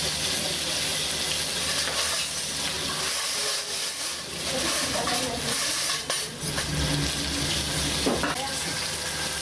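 A whole pomfret frying in a wok of hot oil, the oil sizzling steadily around the fish.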